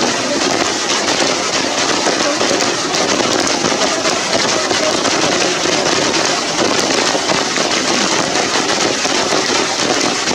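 Steady rain falling, a dense even hiss with a fine crackle of drops throughout.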